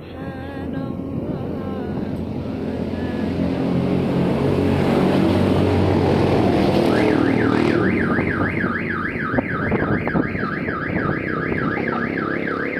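A vehicle engine running and growing louder, then from about halfway in an electronic alarm warbling rapidly up and down, a little over two sweeps a second, over the engine.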